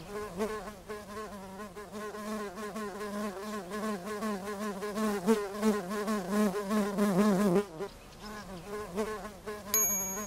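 A cartoon bee buzzing, its pitch wavering up and down. The buzz drops to a fainter level about three-quarters of the way through.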